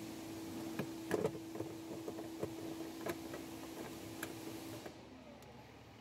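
Light clicks and taps of hand tools and plastic parts being worked on a car's rear door trim panel, over a steady low hum that stops about five seconds in.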